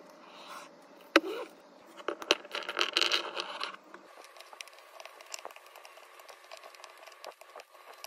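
Small hard plastic toy pieces clattering and scattering on a tabletop, with a sharp knock about a second in and a dense rattle a little later. Then faint, light clicks as single pieces are set down one at a time.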